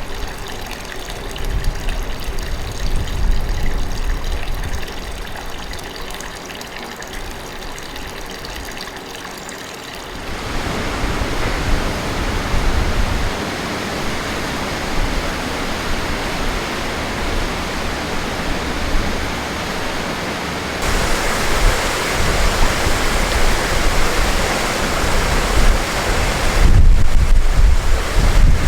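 Hot-spring water of the Yubatake rushing and splashing in a steady stream. The rush gets louder in steps about ten seconds and twenty seconds in, with low wind buffeting on the microphone near the end.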